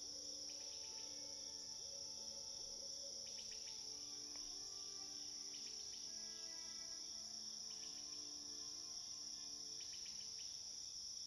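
Faint chorus of crickets, a steady high-pitched trill, with a few short bursts of quicker chirping about every two to four seconds.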